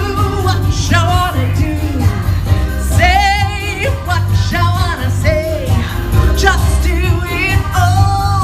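Upbeat pop music with a steady bass beat and a singer's voice, sung notes gliding between pitches and one held with vibrato about three seconds in.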